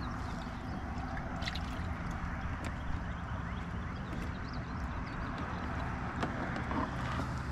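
Hobie Outback pedal kayak under way on calm water: a steady wash of water along the hull over a low rumble, with a few light clicks.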